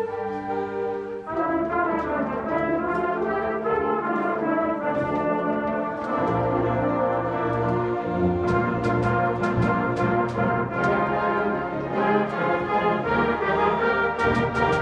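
Seventh-grade symphonic band playing, brass to the fore over held low chords. The sound grows fuller just over a second in, and sharp percussion strokes join from a little past the middle.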